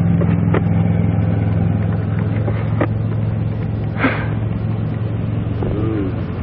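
A vehicle engine idling with a steady low hum, its higher note dropping away about two seconds in. A few short sharp clicks sound over it, the strongest about four seconds in.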